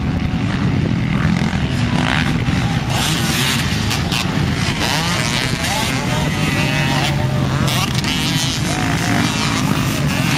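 Motocross dirt bike engines running under a steady low drone, with revs rising and falling as the bikes accelerate and come off the jumps.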